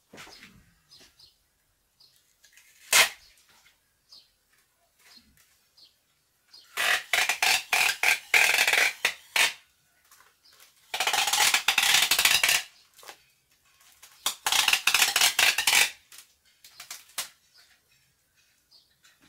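Packing tape pulled off a handheld tape dispenser in three long, crackling rips while it is wound around a plastic grow bag. A single sharp click comes about three seconds in.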